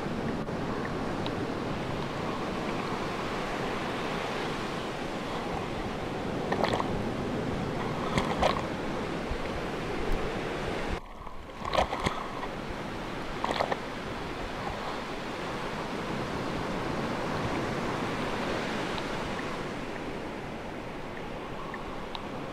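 Sea waves washing steadily. A few short, sharper sounds stand out between about six and fourteen seconds in, and the sound drops out briefly about halfway through.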